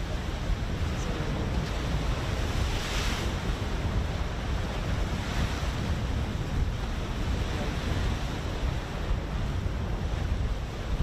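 Wind buffeting the microphone over open sea, with the wash of waves; one brief louder hiss of surf about three seconds in.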